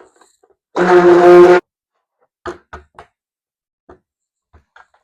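Stick blender running in a short burst of just under a second in soap batter, a loud steady motor hum, bringing the batter toward trace. A few light knocks follow, the blender or utensils tapping the container.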